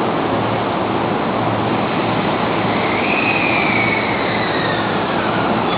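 Electric commuter train running, heard from inside the carriage: a steady rumble and rush of wheels and track, with a thin high squeal that slides down in pitch about three seconds in.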